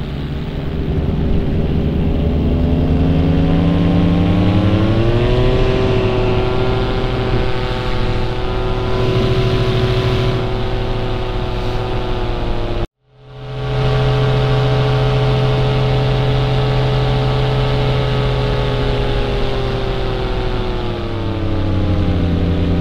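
Paramotor engine and propeller running in flight. The pitch rises as the throttle is opened about two to five seconds in, holds steady, and drops as the throttle is eased back near the end. A brief break in the sound comes about halfway through.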